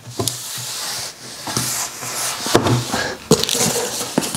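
Hands rummaging in a cardboard shipping box, rustling and scraping its packaging, with several sharp knocks and clicks along the way.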